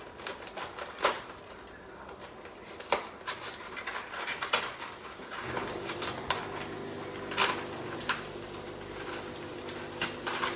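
Thick tomato sauce simmering in a pan, popping with scattered irregular plops. About halfway through a steady low hum starts up and keeps going.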